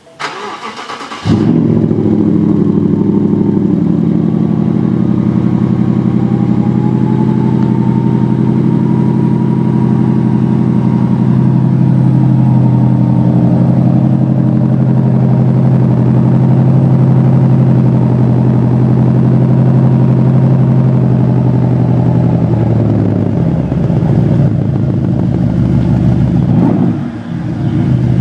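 BMW X6 50i's twin-turbo V8 cranked and catching about a second in, then idling steadily. Its note drops and shifts near the end.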